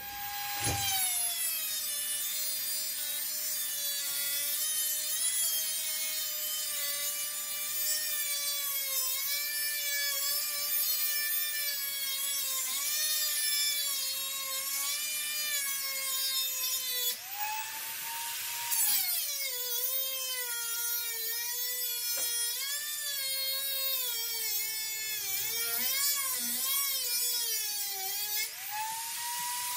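Angle grinder grinding on a steel wheel hub clamped in a vise. The motor's whine sags and wavers as the disc bites, and rises sharply when the disc comes off the metal, about two-thirds of the way through and again near the end.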